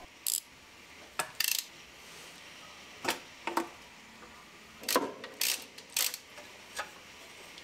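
About ten sharp metallic clicks and clinks at irregular intervals: a ratcheting spanner, nuts and the manifold being worked off a car engine by hand.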